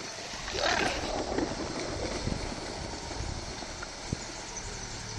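Pickup truck engine running as it drives slowly into a river ford, with a steady low rumble and wind noise on the microphone.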